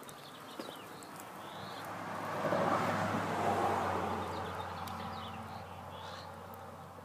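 A vehicle passing on the road, its sound swelling over a few seconds and then fading, with a steady low hum beneath. Small birds chirp briefly now and then.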